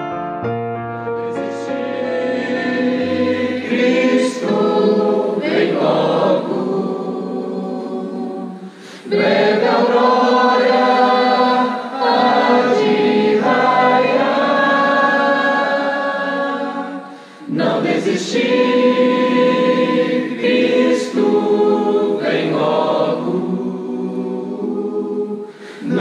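A group of women and men singing a gospel hymn in unison, after a few piano notes in the first seconds. The singing breaks off briefly twice between phrases.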